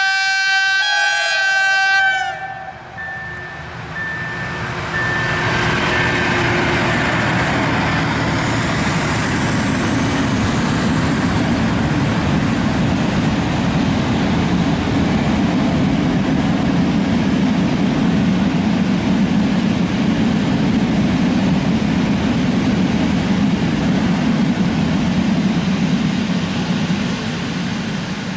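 A freight locomotive's horn sounds for about two seconds at the start, shifting pitch partway. Then a long freight train of open wagons rolls past with a steady, loud rumble of wheels on the rails.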